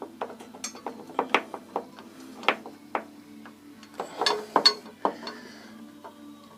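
Irregular metallic clicks and clinks of hand tools and brake caliper parts being handled, with a denser, louder run of clinks about four seconds in.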